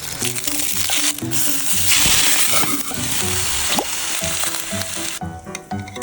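Onion frying in a hot pan, a steady sizzle that stops about five seconds in, over background music.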